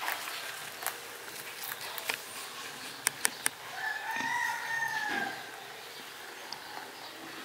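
Rabbit chewing a cannabis stalk, with three sharp crunches about three seconds in. Right after, a single drawn-out animal call rises and then falls in pitch for about a second and a half.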